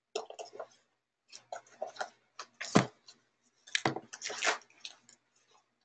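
Sketchbook pages being flipped and handled: an irregular run of paper rustles and light knocks, loudest about three and four seconds in.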